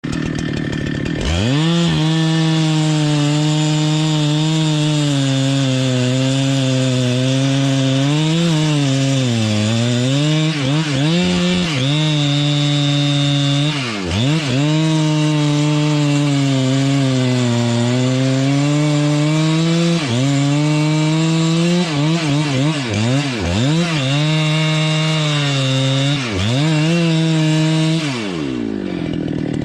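Chainsaw running at high revs while cutting wood, coming up to speed about a second in, its pitch dipping and recovering repeatedly as the chain bites, then dropping away near the end.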